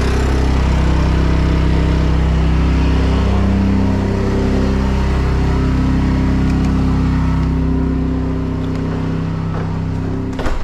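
Champion 201407 inverter generator running steadily under full load. Its engine note drops in level about eight seconds in, and there is a sharp knock near the end.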